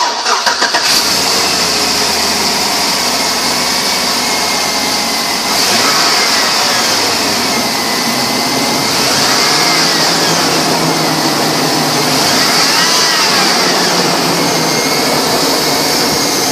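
Chevrolet Vortec V8 engine of a 2004 Chevy Avalanche cranks and catches right at the start, then runs steadily. There is a loud, steady hiss over the engine note.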